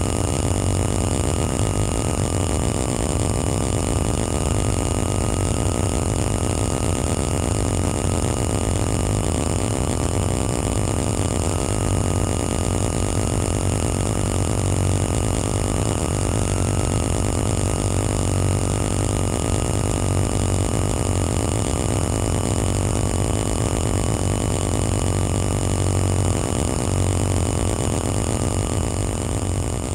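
Live electronic noise performance: a dense, steady drone with a deep hum underneath and thin sustained tones above, one of them wavering slightly in pitch.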